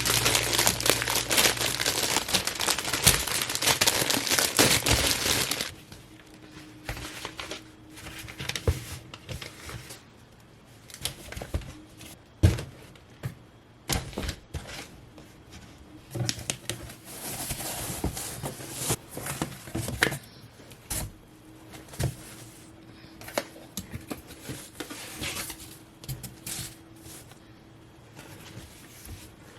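Paper or plastic packaging being handled, crinkling and rustling with scattered taps and clicks. It is dense and loud for the first six seconds or so, then drops to quieter, intermittent handling.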